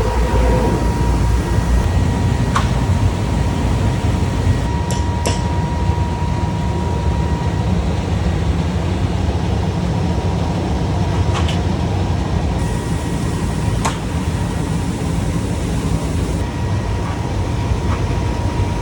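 Glass-cutting CNC machine running: a steady low mechanical hum and rush, with a thin steady whine that fades in and out and a few sharp clicks scattered through it.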